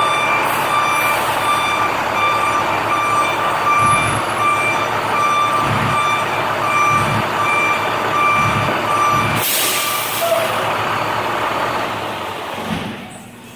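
School bus reversing, its backup alarm giving a steady series of beeps, a little more than one a second, over the running engine. The beeping stops about ten seconds in with a short, sharp hiss, and the engine sound fades near the end.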